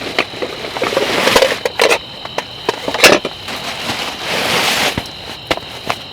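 Rustling and crinkling of bags and gear being handled, in swells, with a few sharp clicks and knocks, over the steady high chirr of insects.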